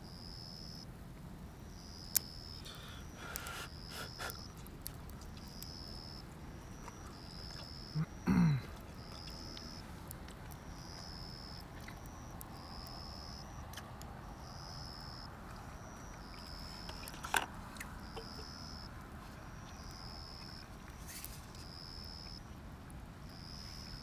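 Outdoor evening ambience by a wood fire: a short high chirp repeating about once a second, over a low steady hiss, with a few sharp clicks. A brief low sound falls in pitch about 8 seconds in.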